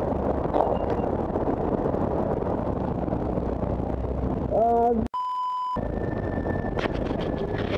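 City traffic noise with cars idling and moving close by. A person's voice comes about four and a half seconds in, cut off by a single half-second censor bleep.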